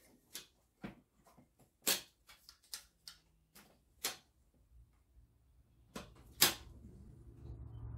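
Ratchet-head torque wrench clicking while intake manifold bolts are tightened: a run of sharp, irregular metal clicks, the loudest about six and a half seconds in. A low hum rises near the end.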